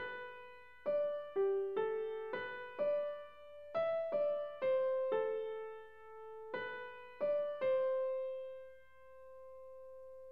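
Background music: a slow melody of single struck piano notes, the last one held and fading away near the end.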